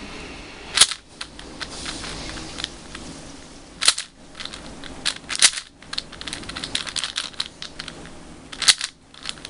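Moyu Weisu 4x4 speed cube turned by hand: its plastic layers click and clatter as they turn, with about four sharp snaps as layers are pushed through corner-cutting turns.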